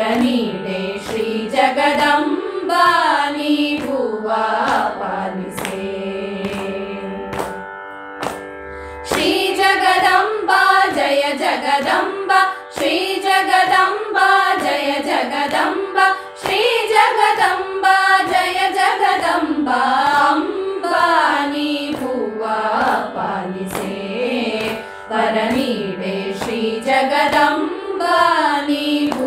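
A group of women singing a Kannada devaranaama (devotional song) together in raga Brindavani Sarang, over a steady drone, with light hand claps keeping the beat. The voices drop away briefly in the middle, then come back in full.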